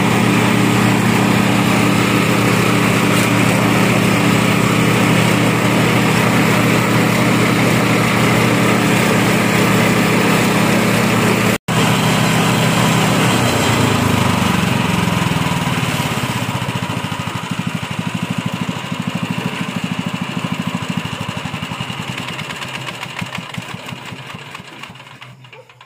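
Small petrol engine driving a belt-driven compost grinder, running steadily at speed. About halfway through, its pitch drops and the engine and grinder wind down, fading almost to nothing by the end.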